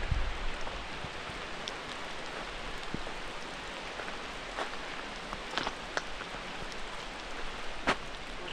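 Steady rain falling, with a few louder individual drops striking close by in the second half, the loudest near the end. A brief low rumble at the very start.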